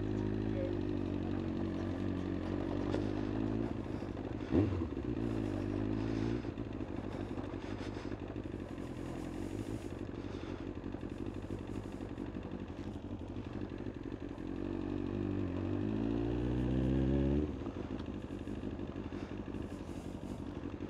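Kawasaki ZX-9R inline-four engine running as the bike rolls away at low speed, with one sharp knock about four and a half seconds in. Near the end the revs climb for about three seconds, then drop suddenly.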